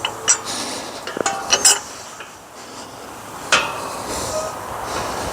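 Metal gate being worked: a few sharp metallic clanks and clinks of the latch and frame, a cluster about a second in and another near the middle, with no hinge squeak, which the walker puts down to the hinges having been oiled.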